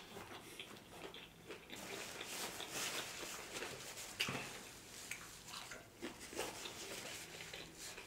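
Close-miked mouth sounds of chewing and biting a mouthful of birria taco: crackly, fairly quiet chewing with a few sharper clicks and smacks along the way.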